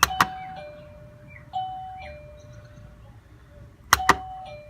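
Batteryless, self-powered wireless doorbell (Linptech/TEQIN Obell) pressed twice. Each press of the push button gives a sharp double click. The plug-in receiver answers with a quieter two-note descending ding-dong chime, sounded twice after the first press and starting again after the second.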